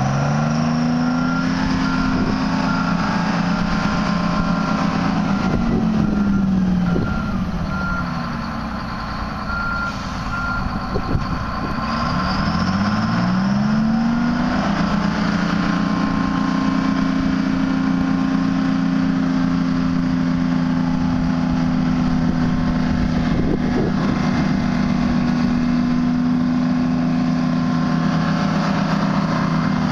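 Euclid R22 haul truck's Detroit six-cylinder diesel revving up and running at raised speed, with a backup alarm beeping steadily for the first five seconds or so. The engine drops back to a low idle about seven seconds in, revs up again around thirteen seconds in and holds high revs while the dump body is raised, easing off at the very end.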